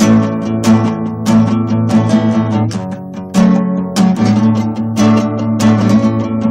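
A guitar strummed in a steady rhythm, about three strums every two seconds, with a short lull about three seconds in. It is recorded on a phone.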